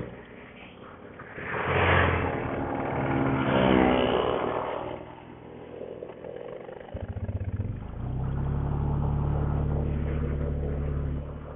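Motorcycle engine revved up and down twice, then a quick sputter about seven seconds in and a steady low running note that fades down just before the end.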